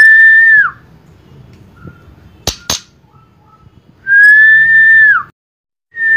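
Young murai batu F4 (white-rumped shama cross), under a month old, giving long clear whistles, each held at one pitch and then dropping as it ends. There is one at the start, a longer one about four seconds in, and another at the very end. Two sharp clicks come between the first and second whistles.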